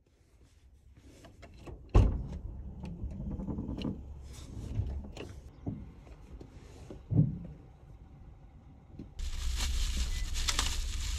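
Knocks and thumps of things being handled inside a small car's cabin, the loudest a sharp knock about two seconds in. Near the end a steady hiss comes in suddenly and holds.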